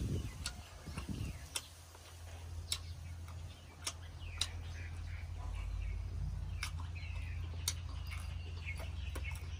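Eating sounds: scattered sharp mouth and chewing clicks, roughly one a second, over a low steady hum that comes in about two seconds in, with faint high chirps.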